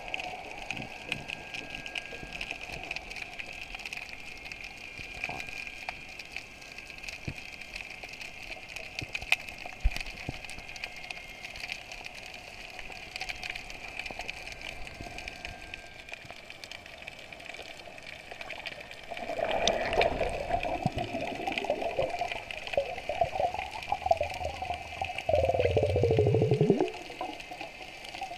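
Underwater ambience picked up by a camera held below the surface: a steady watery hiss with scattered faint clicks. Twice, about two-thirds of the way through and again near the end, a louder rush of water noise swells up, the second one sliding down in pitch before it cuts off.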